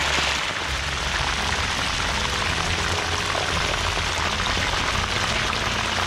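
Whole quail deep-frying in a wok of hot oil: a steady, dense crackling sizzle.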